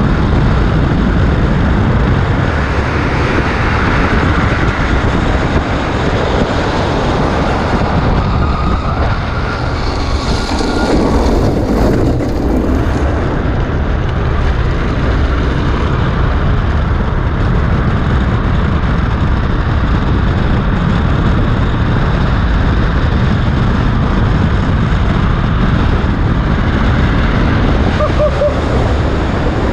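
Steady wind rush on the microphone and tyres rolling on asphalt as a gravity-powered speedtrike descends at speed.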